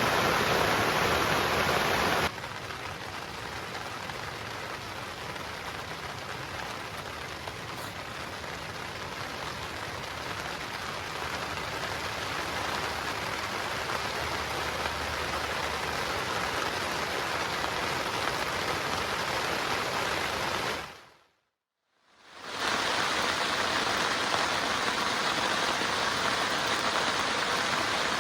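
Heavy rain falling with a steady, even hiss. It drops abruptly to a softer level about two seconds in, and near the three-quarter mark it fades out briefly and comes back louder.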